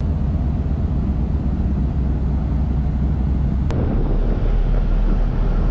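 Steady rumble and rush of wind on the microphone from the open deck of a moving ferry, with the ship's engines and wake underneath. A single brief click comes about two-thirds of the way through.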